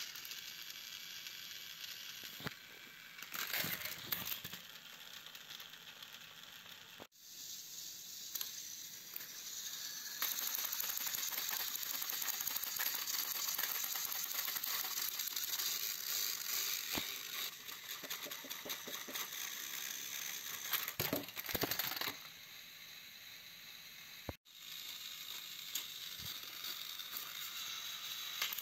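Battery-powered toy train engines running on plastic track: a steady whirring and rattling of small motors and gearboxes, with clicks as the wheels pass over the track joints. The sound breaks off and starts again twice.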